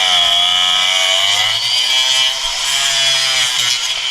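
Handheld electric power tool running loud and steady under load, with a high whine whose pitch sags and recovers as it bites.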